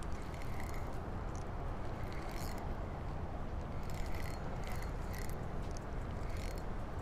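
Spinning fishing reel being cranked to retrieve a lure, its handle and gearing making a soft mechanical whir with scattered short ticks, over a steady low rumble.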